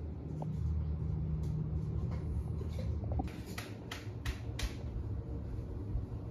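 Steady low background hum with a handful of light clicks or taps in the middle.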